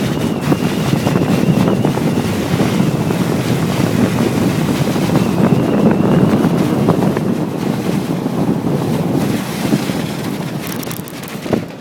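Strong wind buffeting the microphone over surf, easing off near the end.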